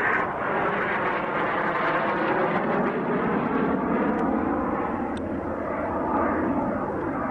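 Canadair CT-114 Tutor jet flying past, its single turbojet giving a continuous rushing noise whose pitch slowly sweeps as it passes.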